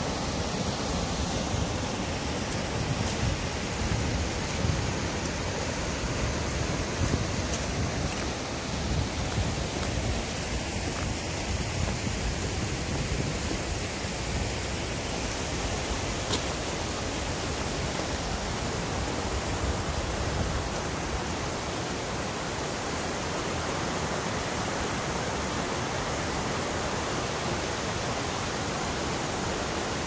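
Steady rushing of a mountain stream's water.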